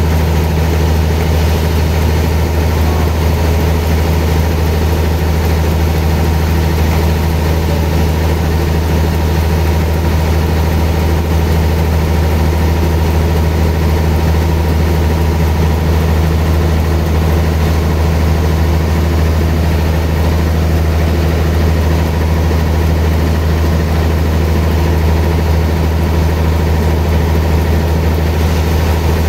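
Sawmill machinery running with a steady, unchanging low drone.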